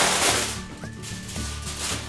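Aluminium foil being pulled off the roll and torn off, giving a loud crinkling rustle at the start and a second, softer one near the end, over background music with a steady beat.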